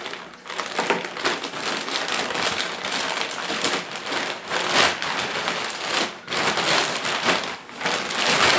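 Continuous rustling and crinkling as a new Cordura nylon backpack is handled during unboxing, swelling louder a few times.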